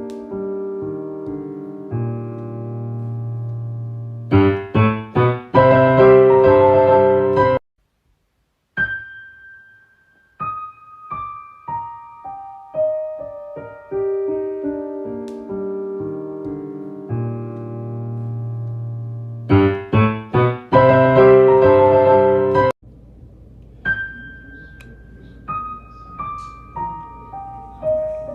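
Solo piano playing a slow, tender melody over held chords, with louder clusters of struck chords. The playing stops briefly about eight seconds in, then the phrase is repeated. Near the end the notes are softer over a faint steady hiss.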